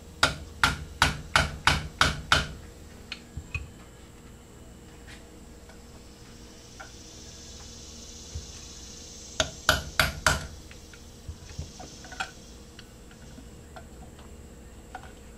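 Small hammer striking a punch to drive a steel roll pin into a stainless steel AR-15 gas block, pinning the gas tube in place: a quick run of about seven sharp taps, then a few light clicks, and about ten seconds in, four more taps.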